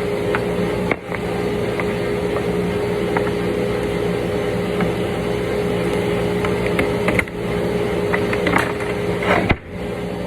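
Steady electric motor hum holding one high-ish tone, with scattered sharp clicks and knocks of a wooden template and panel being handled and pried apart. The hum drops out briefly three times: about a second in, around seven seconds, and near the end.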